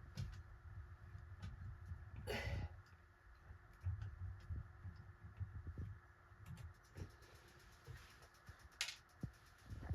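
Faint handling noises: low bumps, scattered small clicks, a brief scraping rustle about two seconds in, and a quick run of light clicks around seven seconds.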